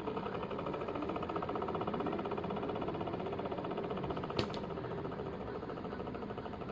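Car air-conditioner blower fan motor running with a fast, even rattle: the fan motor is faulty, leaving the air conditioning not working. A single sharp click sounds a little over four seconds in.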